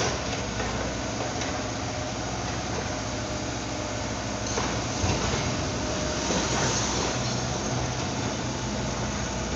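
Liebherr R 924 crawler excavator's diesel engine running steadily while its arm works demolition rubble, with a few knocks and clatters of concrete debris around the middle.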